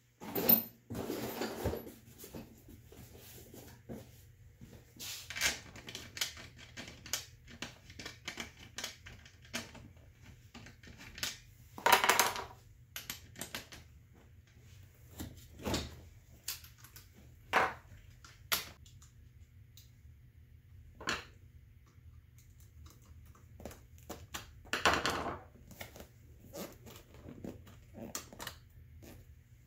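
Hand work on a vehicle seat: irregular clicks and taps of bolts and tools, with a few louder rustling scrapes of the vinyl seat cover being handled, over a low steady hum.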